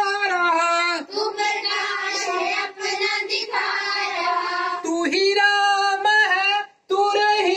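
A group of children singing a prayer song together in unison, with a brief break between lines near the end.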